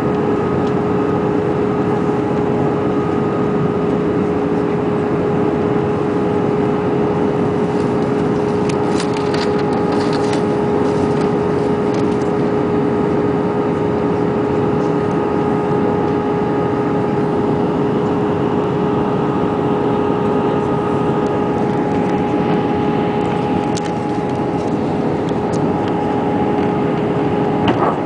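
Steady cabin noise inside an Airbus A319 in flight: the even rush of the engines and airflow, with a constant hum underneath.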